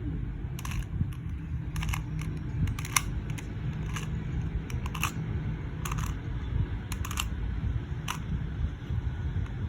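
QiYi 2x2 puzzle cube being turned through an algorithm: irregular sharp clicks as the plastic layers are twisted, about one or two turns a second, over a steady low hum.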